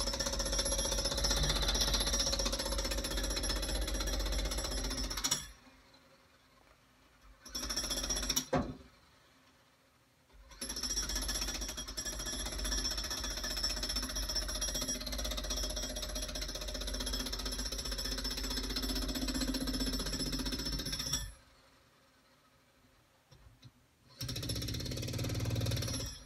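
Jackhammer running in stop-start runs: about five seconds, a short burst, a long run of about ten seconds, then another short run near the end.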